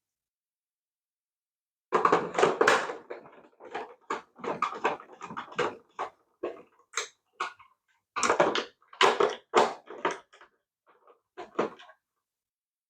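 Sped-up clattering and clicking of a plastic toy RC car being taken apart by hand, in quick irregular bursts with short gaps, starting about two seconds in.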